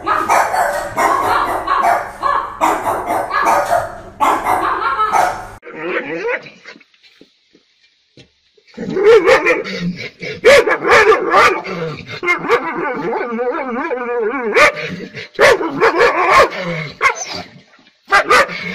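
A French bulldog vocalizing with dense, drawn-out whines and grumbles for the first five seconds or so. After a short pause, dogs bark and yip, with wavering whines between the barks.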